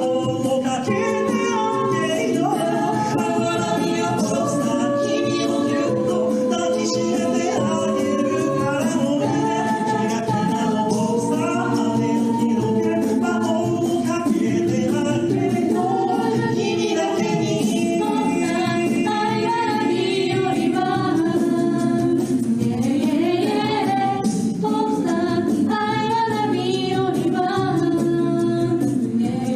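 A mixed-voice a cappella group of seven singing a pop song in close harmony, a lead line over sung backing parts, with a beatboxer adding vocal percussion.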